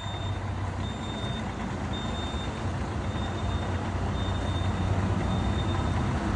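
FNM truck's diesel engine with a diffuser exhaust, running with a deep rumble that grows steadily louder. A faint reversing beeper beeps about once a second in the background.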